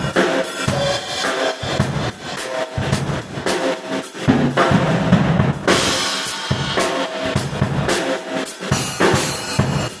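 Acoustic MW drum kit, its rack tom and floor tom freshly re-headed, played in a steady beat of bass drum, snare and cymbals. A heavier run of low drum hits with a cymbal wash comes about five seconds in.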